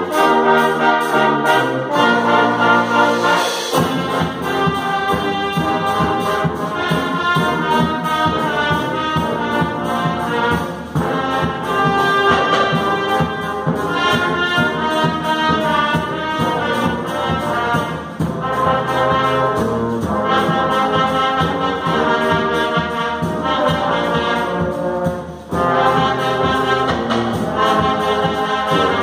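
Wind band playing with the brass to the fore, the low parts and a steady beat coming in about four seconds in.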